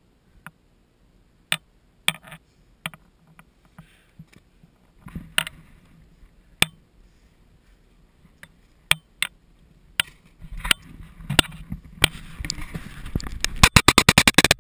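Snowboard bindings being handled and strapped in: scattered sharp plastic clicks and knocks, then, near the end, a fast run of loud ratchet clicks, about six a second, as a binding strap is cranked tight, over rubbing handling noise.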